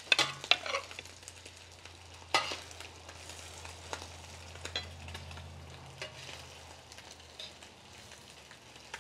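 Chopped beef tripe sizzling steadily as it fries in hot oil on a comal, with a metal spatula scraping against the pan a few times as the pieces are turned, two scrapes close together at the start and another about two and a half seconds in.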